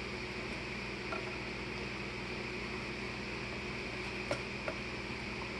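Steady hiss and hum of room noise, with a few light taps as a kitten's head knocks about inside a plastic cup: one about a second in and two close together about four seconds in.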